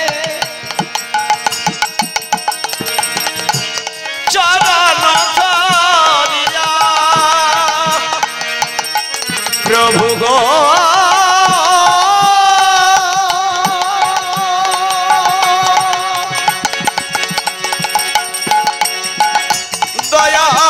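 Bengali devotional kirtan music: drum and percussion strokes keep a steady beat under a wavering melody that glides upward about ten seconds in and then holds long notes.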